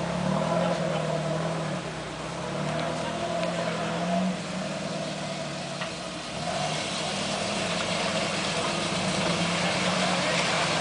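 Off-road 4x4 engines working under load. First a steady engine note from a 4x4 climbing a rutted dirt slope, then, from about six seconds in, an engine pushing through a muddy pond with water splashing.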